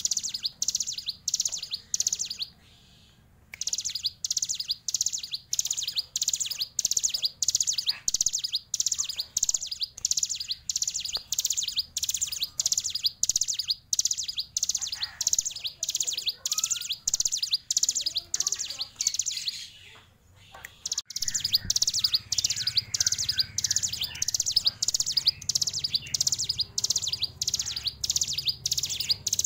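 Caged ciblek gunung, a small prinia, singing a long, even run of sharp, high chirps, two or three a second, broken by two short pauses: about two and a half seconds in and about twenty seconds in.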